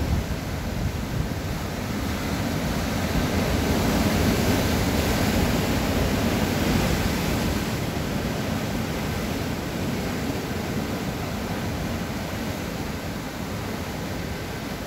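Rough sea surf breaking and churning over rocks, a continuous rushing wash. It swells about four seconds in and eases toward the end.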